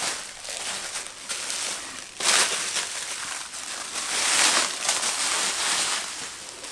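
Plastic bubble wrap crinkling and rustling as it is handled and unwrapped, with louder rustles about two seconds and four seconds in.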